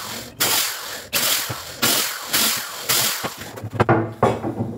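Corded electric drill boring through eucalyptus wood slats in a string of short bursts, about one every two-thirds of a second. Near the end come a few sharp knocks of wooden boards being handled.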